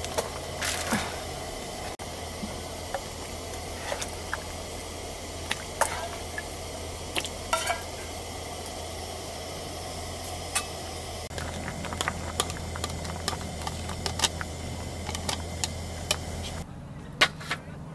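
Food sizzling in a hot pan, a steady hiss dotted with many light clicks and taps. The sizzle cuts off suddenly near the end.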